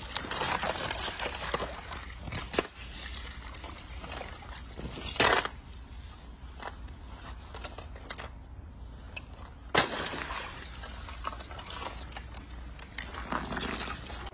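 Water sloshing in a partly frozen swimming pool, with floating pieces of thin surface ice clinking and cracking and a spillway trickling in. Sharp cracks stand out about five seconds and ten seconds in.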